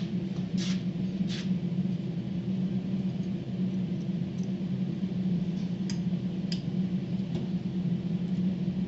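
CNC router's spindle motor running at a steady pitch while engraving MDF, with faint scattered ticks and hiss from the bit cutting.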